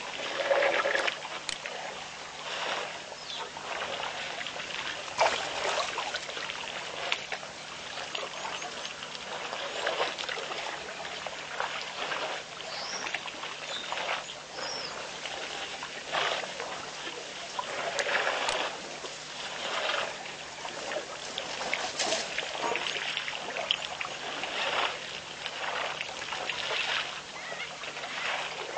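Water splashing and trickling at a pond in uneven bursts every second or so, as animals stir it. Two short rising bird chirps come about halfway through.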